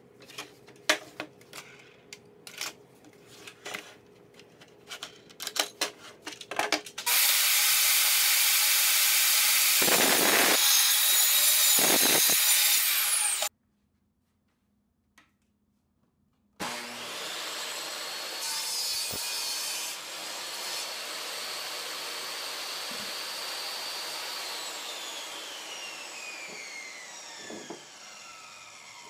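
Scattered knocks of boards and a wooden jig being set on a table saw. Then the table saw runs and cuts wood loudly for about six seconds, stopping dead. After a few seconds of silence it runs again more quietly, its whine falling in pitch near the end as the blade spins down.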